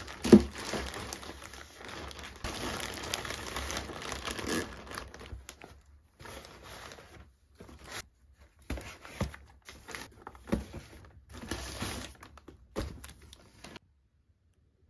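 Plastic mailer bags crinkling and rustling in irregular bursts as parcels are handled and opened, with a sharp thump about half a second in as a bag is set down on a table.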